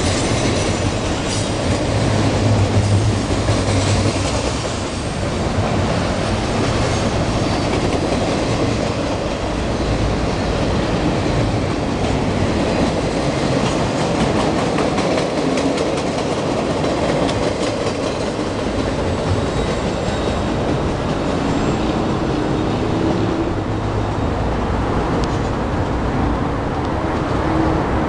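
CSX intermodal freight train of double-stack well cars and flat cars rolling past close by, steel wheels clicking over the rail joints with some wheel squeal.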